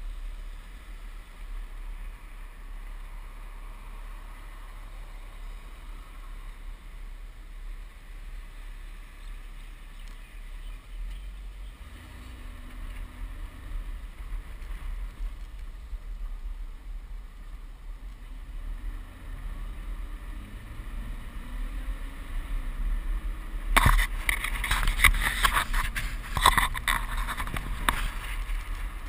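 Low steady rumble of a car driving, the engine note coming up a little as it pulls away after about 12 seconds. Near the end, several seconds of gusty wind buffets the microphone with a loud rough rushing.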